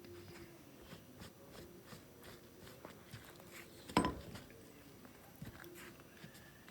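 Faint clicks and taps of tools and wood being handled, with one sharp knock about four seconds in.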